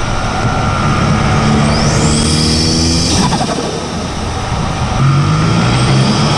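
Audi A5's turbocharged engine, fitted with a cold air intake and a vent-to-atmosphere diverter valve, heard close up from the engine bay while driving hard. The revs climb under acceleration with a rising turbo whistle, break off about three seconds in at a gear change with a rush of released boost, and climb again near the end.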